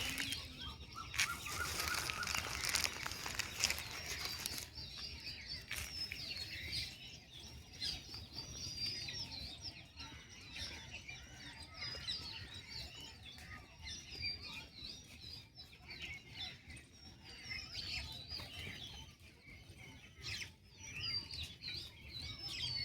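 Many small birds chirping together, dense overlapping short high calls. A louder rustling noise covers them for the first four seconds or so.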